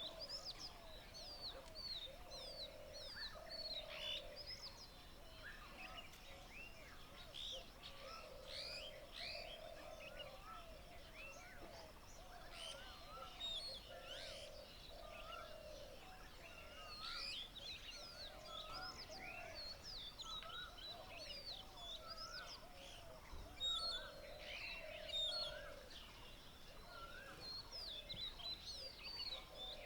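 Many wild birds chirping and calling at once in a morning chorus, with quick high chirps throughout and a lower call repeating every second or two.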